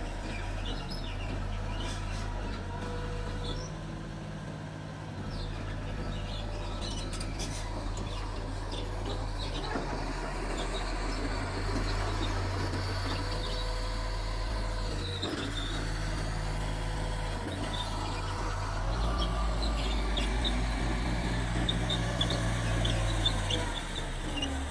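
Small Mitsubishi bulldozer's diesel engine running under working load, its low drone shifting in pitch and getting louder for a few seconds about three-quarters of the way through, with faint bird chirps above it.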